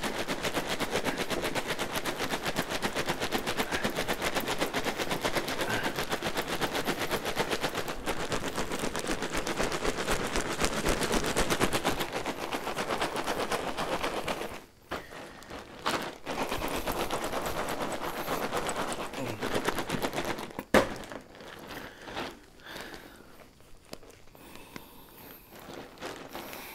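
Ice and rock salt rattling in a cloth-wrapped bag of homemade ice cream as it is shaken hard to freeze the cream: fast, even rattling that breaks off after about fourteen seconds, starts again, and then turns into slower, quieter shakes near the end.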